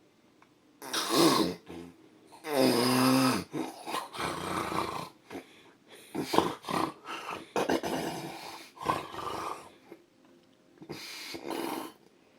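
A man snoring loudly in his sleep: an irregular run of snorts, one of them a long pitched snore about three seconds in, then choppy bursts and a final pair near the end, with quiet breaths between.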